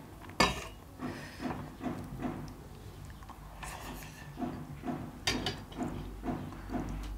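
A metal spoon clinks and scrapes against a steel serving bowl of curry, with a few sharp clicks. Underneath runs wet chewing and mouth sounds of eating rice and curry by hand, at two or three a second.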